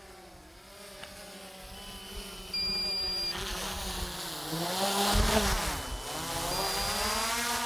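DJI Mavic 3 quadcopter's propellers buzzing close to the microphone as it comes down to be hand-landed, growing louder. The pitch sags and climbs again between about four and six seconds in as the motors are throttled, with a low rumble about five seconds in.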